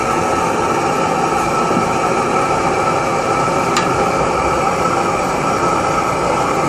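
Blowtorch burning with a steady hiss, its flame heating the hot bulb of a 1940 Lanz Bulldog's single-cylinder hot-bulb engine: the preheat needed before a hot-bulb engine can be started. A single sharp click comes a little past halfway.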